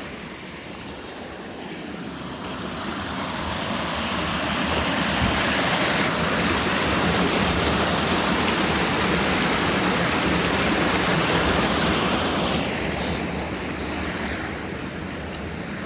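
Running water of a creek, a steady rush that grows louder over the first few seconds, holds, and eases off near the end.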